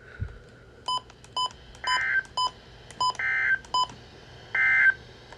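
A run of short electronic beeps mixed with three brief warbling data bursts about a second and a half apart. The bursts sit in the pitch range of Emergency Alert System SAME digital codes, and their shortness fits the end-of-message code.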